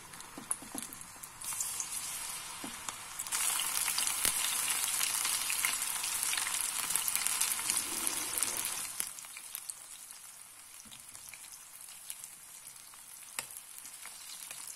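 Batter-coated cauliflower florets deep-frying in hot oil in an iron kadai, a steady bubbling sizzle. It grows louder as more florets go in, is strongest for several seconds, then eases after about nine seconds. A few light clicks of a spoon against the pan.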